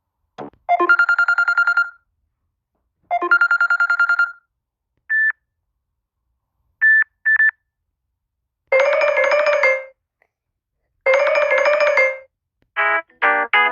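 Samsung Galaxy S8 ringtones playing one after another. A short electronic trilling phrase repeats twice with a pause between, then a few single and double beeps, then a denser buzzing phrase, also twice. A new melodic tone begins near the end.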